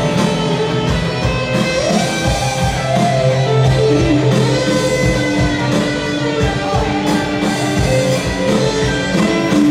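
Live rock band playing: electric guitar over a steady drum beat.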